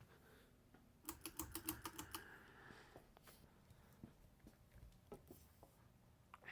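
Casablanca Wailea ceiling fan running faintly on low speed in reverse, a steady low hum. About a second in comes a quick run of about ten sharp clicks lasting about a second.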